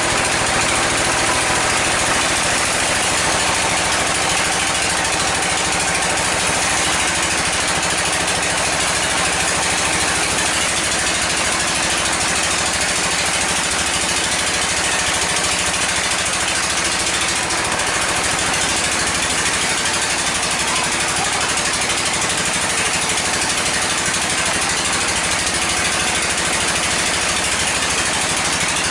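Sawmill band saw running steadily as it cuts through a mahogany log fed by hand, a constant loud mechanical whirr and rasp with no breaks.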